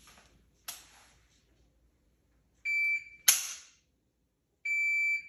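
Electronic shot timer beeps to start, a fraction of a second later the rifle's trigger snaps with a sharp dry-fire click, and the timer beeps again two seconds after the first beep, marking the end of the 2 second par time. A fainter click comes about a second before the first beep.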